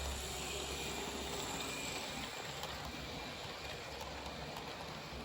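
Hornby OO-gauge model Eurostar train running on a layout: a steady hum of the motor and rumble of wheels on the rails.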